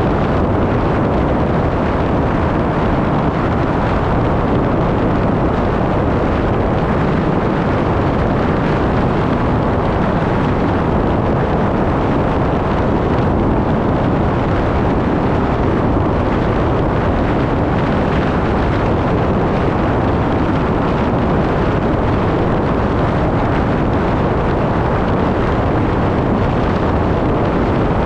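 Steady, loud rush of wind on the microphone over road noise from travelling at highway speed.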